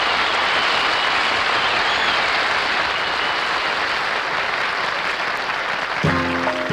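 Studio audience applauding at the end of a song. Near the end the band cuts in with the opening notes of the next number.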